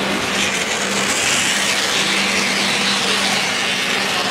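Model train running along the layout's track: a steady whirring hiss with a low, even hum underneath.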